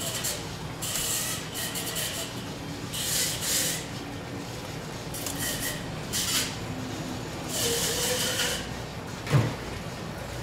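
Long knife drawn through a raw yellowfin tuna loin in repeated scraping strokes, about five in all, with a single thump against the plastic cutting board near the end.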